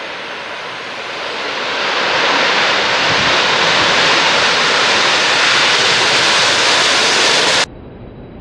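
Jet engine noise of a Boeing 737-800's CFM56 engines as the airliner rolls out on a wet runway after landing, growing louder as it draws close, with wind on the microphone. The sound cuts off abruptly near the end to a much quieter hiss.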